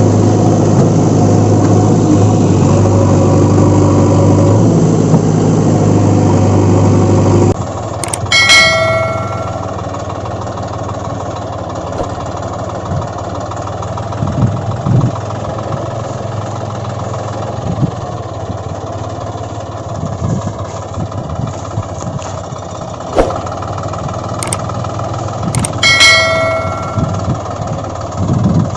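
Vehicle engine running steadily, then dropping suddenly to a quieter running sound about a quarter of the way in. A bell-like ding rings twice, once just after the drop and again near the end.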